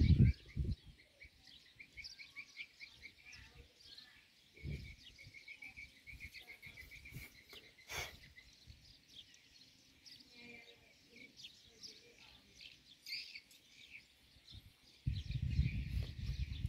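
Small birds chirping in quick runs of repeated notes, with a single sharp click about eight seconds in. A loud low rumble fills the first half second and comes back about fifteen seconds in.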